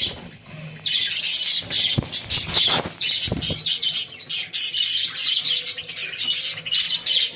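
Lovebirds calling: a rapid, almost unbroken run of high, squawky chirps that starts about a second in.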